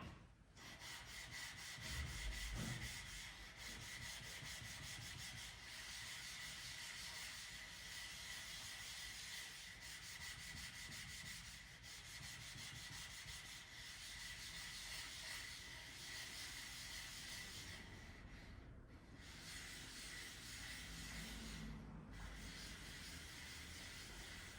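Spokeshave blade being honed on a water whetstone: a faint, continuous gritty scraping of steel rubbed back and forth on the wet stone, pausing briefly twice near the end.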